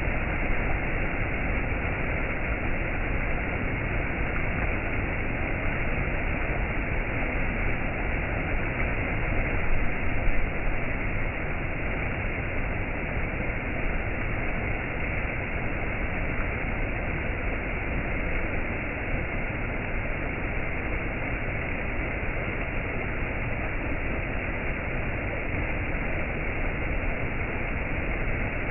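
Waterfall: a steady, even rush of falling water, swelling briefly about ten seconds in.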